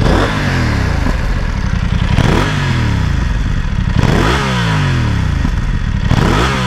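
BMW F 900 XR's 895 cc parallel-twin engine revved at a standstill through its standard exhaust: four quick blips, each rising and falling back, about two seconds apart.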